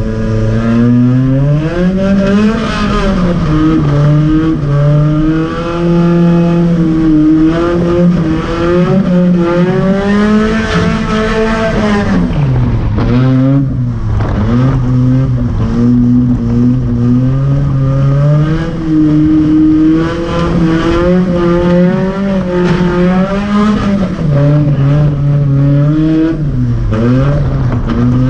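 Volvo drift car's engine heard from inside the cabin, revving up and down repeatedly through a drifting lap. The revs fall sharply about twelve seconds in, then climb again.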